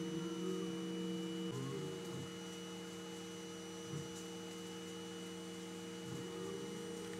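CNC milling machine running a job: a steady machine hum made of several held tones, with a short knock about four seconds in.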